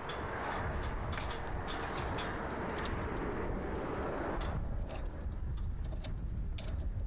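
Scattered sharp metal clicks and ticks as a fall-arrest attachment is handled and fitted onto a steel lifeline cable, over a steady background rush and low rumble. The rush drops away about four and a half seconds in, leaving the rumble and the clicks.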